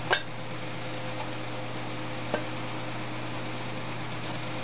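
Two sharp metal clicks, a louder one right at the start and a smaller one about two seconds later, as a small engine's flywheel is handled and seated on its crankshaft. A steady low hum runs underneath.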